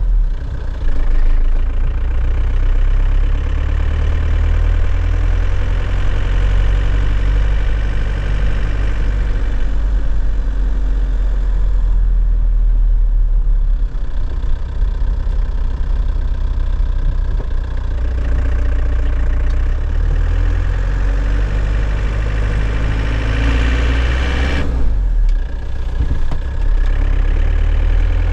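2001 Nissan Cabstar truck's engine running steadily, heard from inside the cab, with short changes in the engine note about a second in and again near the end.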